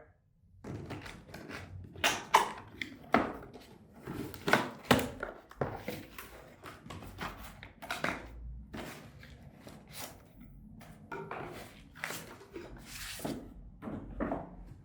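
Cardboard box and packaging being opened and handled: irregular knocks, scrapes and rustles.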